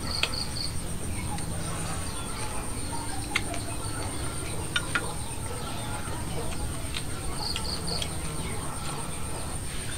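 Outdoor ambience: a steady high-pitched insect drone, with a bird giving three quick chirps twice, at the start and again about seven and a half seconds in. A few light clicks fall in between.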